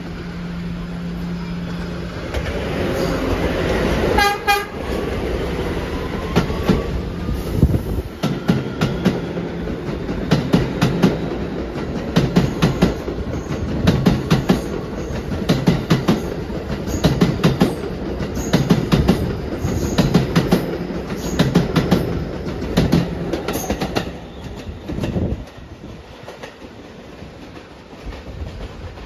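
R211 subway train coming along the platform: a steady motor tone at first, a short horn blast about four seconds in, then the wheels clicking over rail joints in repeating groups as each car passes. It grows quieter near the end.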